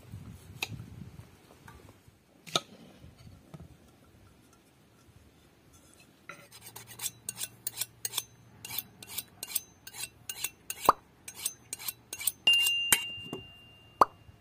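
A kitchen utensil clinking against a bowl: a couple of single knocks, then from about halfway a quick run of strikes at roughly three a second. Near the end one strike leaves a brief ringing tone.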